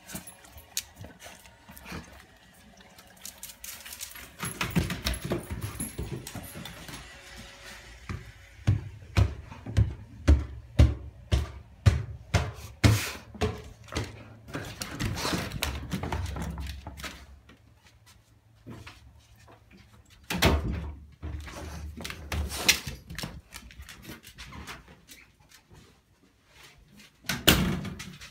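Pit bull moving about excitedly on a tiled floor in a small room: a string of quick knocks and thumps with scuffling, densest a third of the way in, with single loud thumps later and near the end.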